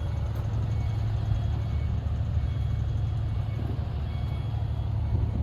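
A steady low engine rumble, like a vehicle running, with faint short beeps repeating now and then.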